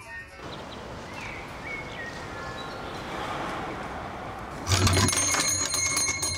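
Faint outdoor street ambience with a few short chirps, then a shop door opens with a low thud and its doorbell jangles and rings, loud and bright.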